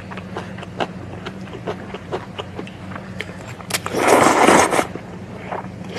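Kotdeungchigi (Jeongseon buckwheat noodles) slurped hard into the mouth in one loud slurp about four seconds in, lasting about a second. Before it come small wet chewing and mouth clicks.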